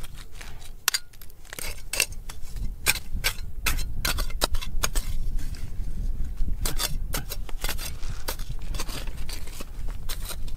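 Metal digging tool clinking and scraping against stone and gravel, a fast irregular run of sharp clicks over a low rumble.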